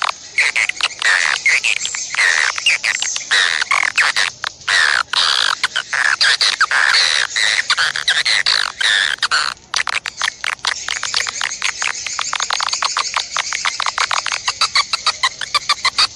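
A songbird singing continuously: rapid dry chattering ticks mixed with quick whistled notes that slide up and down, the whistles thickest in the first half. After a brief pause a little past halfway, it turns to fast ticking chatter.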